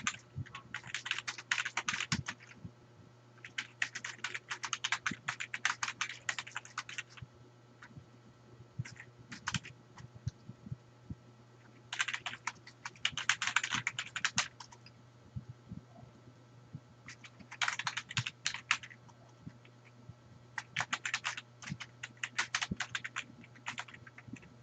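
Fast typing on a computer keyboard, rapid key clicks coming in bursts of a few seconds with short pauses between them.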